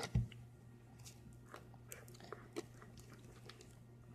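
Fluffy slime of glue, shaving foam and saline solution being stirred in a bowl: faint, scattered sticky squelches and small clicks, with one low thump just after the start.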